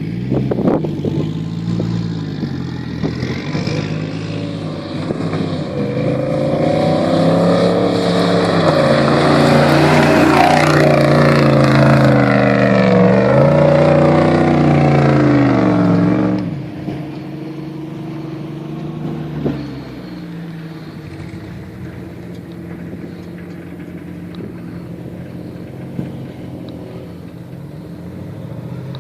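Off-road 4x4 engine working hard in sand, its pitch rising and falling repeatedly under heavy throttle, then dropping off suddenly about halfway through to a lower, steadier running sound.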